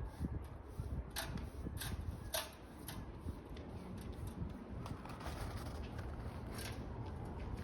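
Footsteps crunching in snow, a few steps at walking pace, over a steady low rumble.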